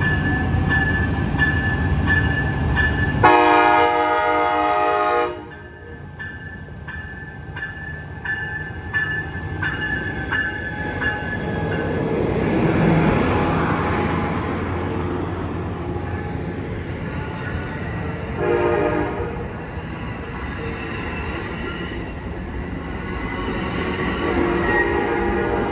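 An Amtrak Capitol Corridor train led by an SC-44 Charger locomotive arriving past the platform. A bell rings steadily, about twice a second, and a loud horn blast of about two seconds comes a few seconds in, with a short second blast later. Between the horn blasts, the locomotive and bilevel cars rumble by.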